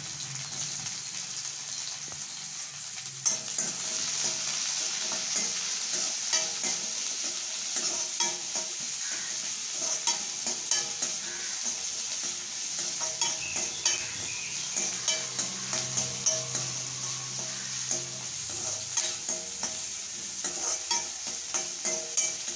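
Chopped onions, ginger and green chilli sizzling in hot sesame oil in a metal kadai. From about three seconds in, a metal ladle stirs them with repeated scrapes and clicks against the pan.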